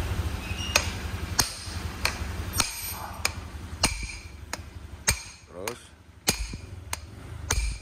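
Repeated hammer taps, roughly one every half second to a second, each with a short metallic ring: new steering-head bearing parts on a Honda PCX 160 being knocked into place through a wooden board.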